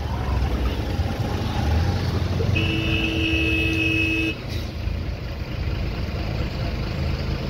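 Road traffic: motor scooters passing with a steady low engine rumble. A vehicle horn sounds once, held for about a second and a half, near the middle.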